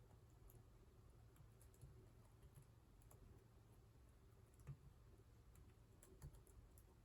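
Faint, irregular keystrokes on a computer keyboard as someone types, with a slightly louder key strike near the middle and another near the end, over a low steady room hum.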